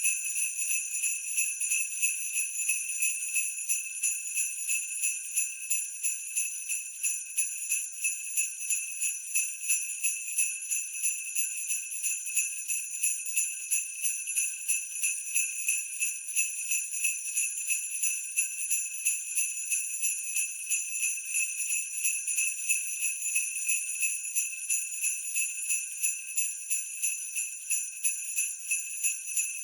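Sleigh bells jingling in a steady looped rhythm at 90 beats per minute, with a bright, even shake on every beat.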